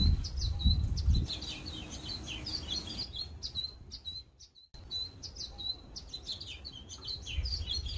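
Several songbirds chirping and twittering in quick, overlapping short calls, over a low rumble that is strongest in the first second. The sound cuts out briefly about halfway, then the chirping picks up again.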